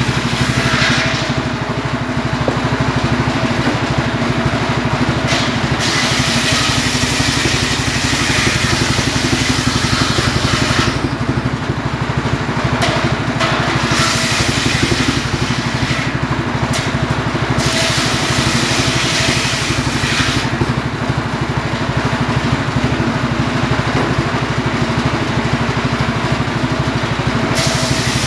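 Homemade table circular saw running steadily on its engine, the large blade cutting through firewood logs in several passes. The longest cut lasts about five seconds, starting some six seconds in.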